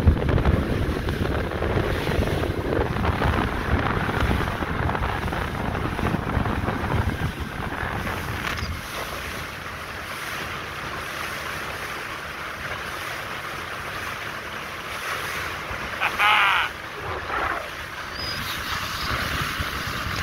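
Outboard-powered boat running at speed: wind buffeting the microphone over the rush of water along the hull and the hum of the outboard motor. About three-quarters of the way through comes a short wavering pitched sound, then a smaller one.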